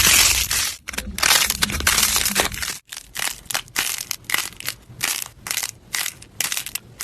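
Crunchy slime being squeezed and pressed, giving dense crackling crunches. About three seconds in the sound breaks off and gives way to a quicker run of small separate crackles and pops.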